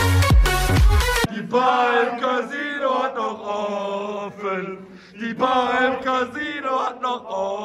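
Club dance music with a heavy beat cuts off about a second in. A group of young men sing a chant-like song together, thinner-sounding as if recorded on a phone, with a short dip in the middle.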